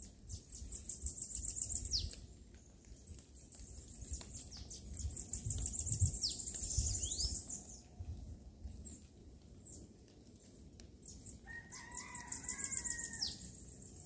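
Bananaquits singing in repeated bursts of rapid, very high-pitched buzzy trills, with a few quick downward-sweeping notes: the agitated, territorial singing of birds squaring off at a caged bananaquit.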